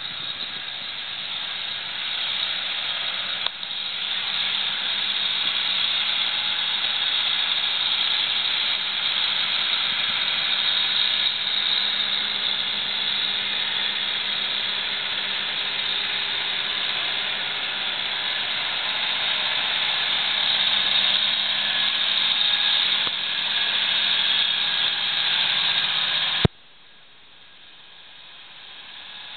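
New Holland TS110 tractor's diesel engine running at a distance, a faint steady hum under a loud, even hiss. About three-quarters of the way through, the sound cuts off suddenly with a click, leaving a much fainter hiss that slowly grows.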